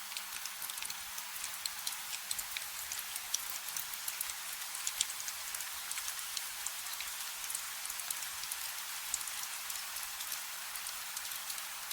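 Rain falling on hard surfaces: a steady hiss thick with many small scattered drop ticks, over a faint steady hum.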